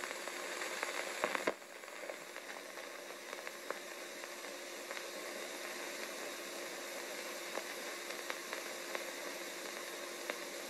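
Steady hiss with scattered faint clicks and crackle, the surface noise of a 1930s optical film soundtrack. A brief cluster of louder clicks comes about a second in.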